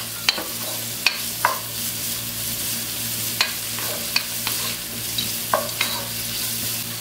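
Diced carrot, green peas and sliced onion sautéing in oil in a pot with a steady soft sizzle. A wooden spatula stirs them, scraping and knocking against the pot every second or so.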